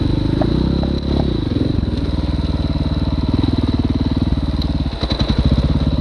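Dirt bike engine running, easing off and settling into a steady pulsing idle about two seconds in, with a short blip of throttle about five seconds in.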